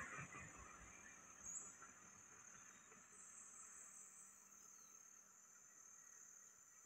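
Near silence: faint, steady high-pitched insect chirring from the roadside vegetation, with a passing car fading away in the first second.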